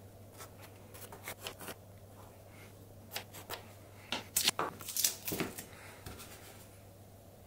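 Quiet, scattered scratching and light taps: a pencil tracing around clear acrylic square tubes on a masked plastic plate, and the tubes and hands being handled on it.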